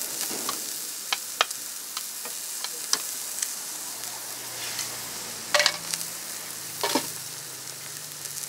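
Food frying on a hot griddle, a steady sizzle, with scattered light clicks and taps and two short louder bursts in the second half.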